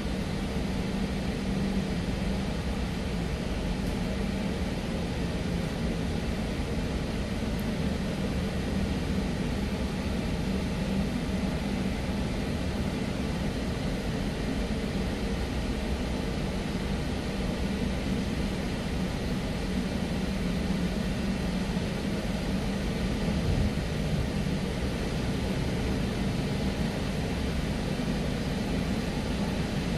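Automatic car-wash gantry running: a steady rushing noise of spray and air with a low hum underneath, heard from inside a car waiting in the wash tunnel.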